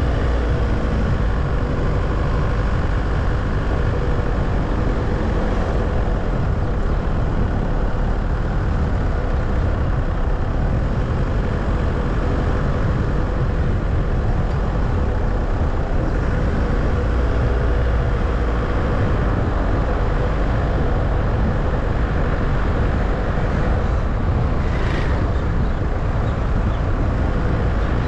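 Steady running noise of a car being driven, tyres and engine in a low, even rumble with a faint steady hum. A brief higher sound cuts through near the end.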